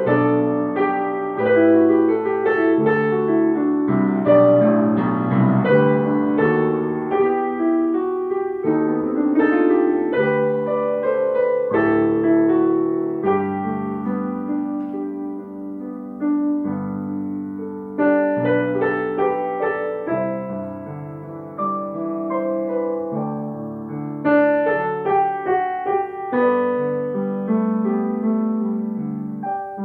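Piano playing a flowing choral accompaniment, slowing and holding longer notes near the middle before moving on again.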